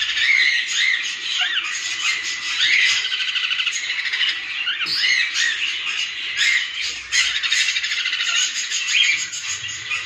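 Cockatiels chirping and calling: a busy, unbroken chatter of overlapping short rising and falling calls and quick trills.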